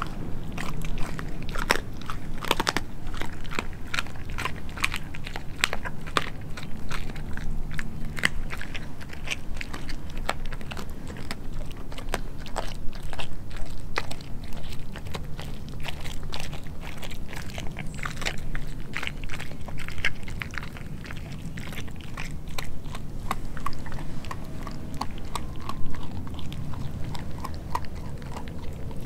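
A Doberman chewing raw meat, with many irregular sharp crunches and clicks of its teeth.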